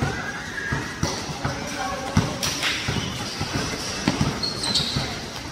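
A basketball being dribbled, bouncing about every two-thirds of a second, with players' and onlookers' voices around it. A brief high squeak comes near the end.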